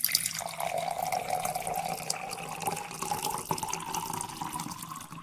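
Liquid pouring into a glass, its pitch slowly rising as the glass fills, with a fine crackle throughout.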